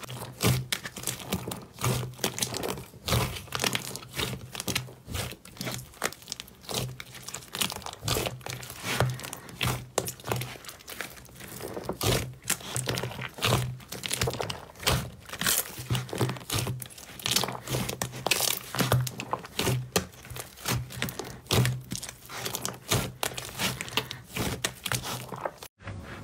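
Hands squeezing and kneading a large mass of glossy slime in a plastic tub: a dense, irregular run of wet crackles, clicks and squelches.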